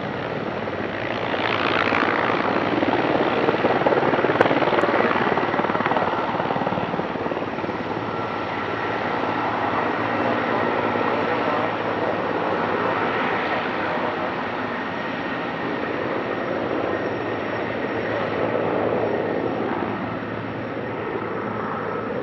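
Sikorsky S-64F Skycrane heavy-lift helicopter running close by: a loud, steady rotor and engine noise with a thin steady whine on top, swelling a little a few seconds in.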